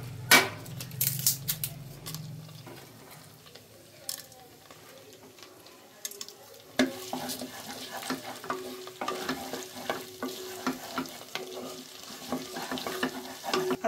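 Whole spices (bay leaves, cinnamon, cloves, cardamom) sizzling in hot butter and oil in a pressure cooker, stirred with a wooden spatula. There are a few sharp knocks in the first couple of seconds, and the sizzle grows louder about seven seconds in as the spices fry.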